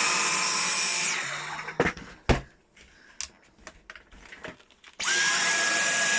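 Dyson V10 cordless stick vacuum motor running with a steady high whine, winding down about a second in. A few sharp clicks and knocks follow, then the motor starts again abruptly about five seconds in and runs on.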